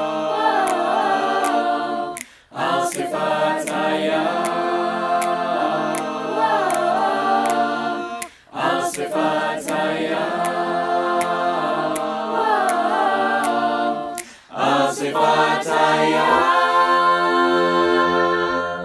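Mixed-voice a cappella choir of young male and female singers in close harmony, phrase after phrase, over a light ticking beat about twice a second. The voices break briefly three times, then end on a long held chord that cuts off abruptly.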